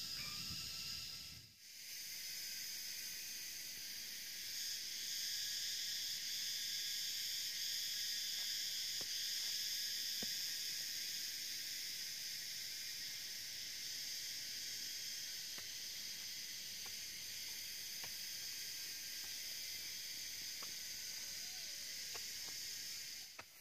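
Steady, high-pitched chorus of tropical insects droning without a break, swelling a little for several seconds near the middle. A few faint knocks from a hoe chopping into soil sound through it.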